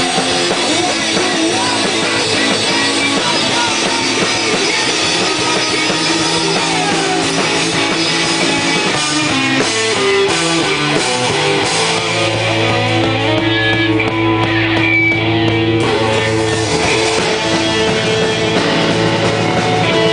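Rock band playing live: electric guitars and a drum kit with cymbals. A few seconds past the middle the cymbals thin out, leaving long held notes ringing.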